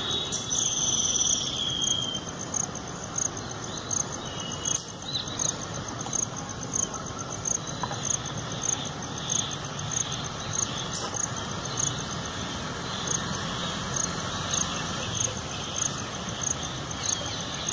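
Insects chirping outdoors: a high, short chirp repeating at an even pace over steady background hiss.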